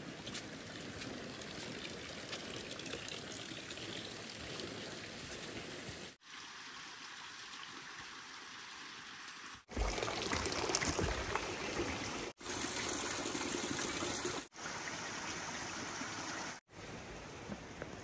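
Hot spring water trickling and pouring steadily, a thin stream falling into a wooden soaking tub. It comes in several short stretches that cut off and change level abruptly.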